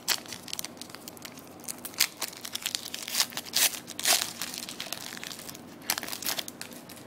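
A trading-card pack wrapper crinkling and tearing as it is opened, in irregular sharp crackles, with the cards handled.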